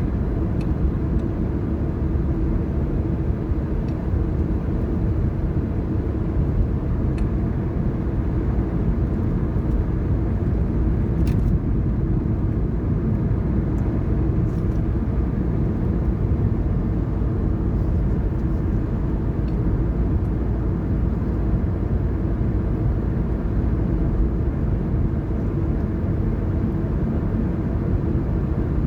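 Car driving at a steady speed: a constant low rumble of tyres and engine that does not change.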